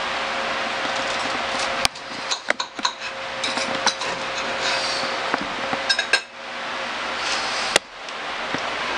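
Knife and fork clinking and scraping on a plate while cutting into a pork chop, a scatter of sharp clicks in small clusters, the strongest single click near the end, over a steady background hiss.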